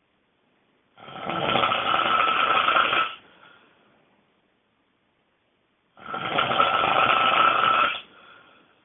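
A person snoring very loudly: two long snores about five seconds apart, each lasting about two seconds and trailing off into a fainter breath.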